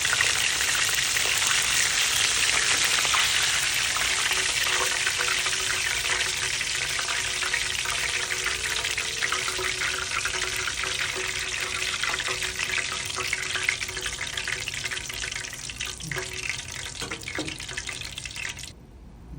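Whole snapper deep-frying in hot oil: a dense sizzle with fine crackling that slowly dies down, then cuts off suddenly near the end.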